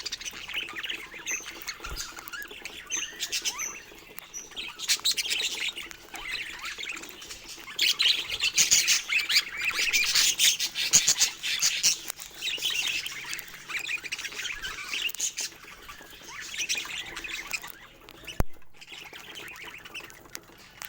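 Budgerigars chattering and squawking, a dense stream of warbles and sharp calls, loudest from about eight to twelve seconds in, with a single sharp tap near the end.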